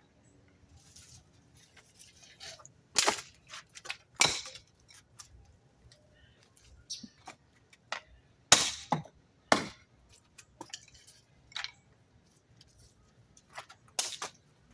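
Dry sticks cracking and knocking together as they are gathered and handled: irregular sharp cracks, the loudest about three and four seconds in, a cluster around eight to ten seconds, and another near the end.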